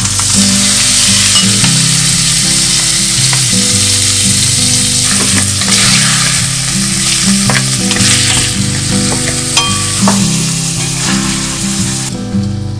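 Frozen mixed vegetables sizzling in hot oil in a stainless steel pan, with a wooden spatula stirring and scraping and a few sharp ticks of spitting oil. The sizzle thins out near the end.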